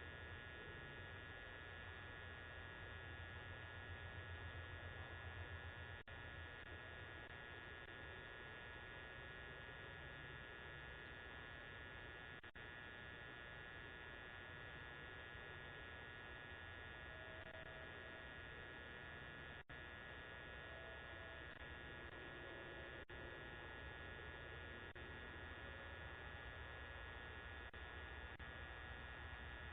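Faint, steady electrical hum with a thin high whine, picked up through a Ring video doorbell's microphone.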